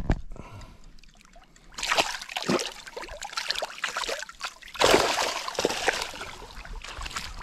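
Water splashing and sloshing, in two rough spells about two and five seconds in.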